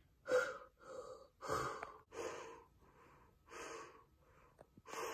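A person's short, breathy grunts of effort: about six huffs roughly a second apart, voicing a character straining to punch.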